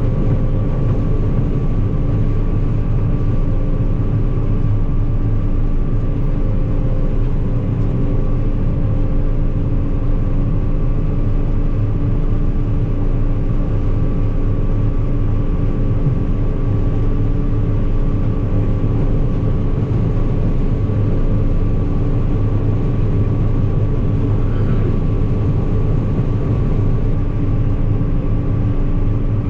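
Combine harvester running steadily while harvesting corn: an even machine drone with several constant hums, unchanged throughout.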